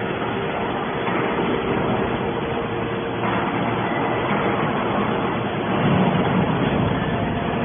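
Hydraulic scrap iron baler running: a steady machine drone with a faint held hum, swelling slightly about six seconds in.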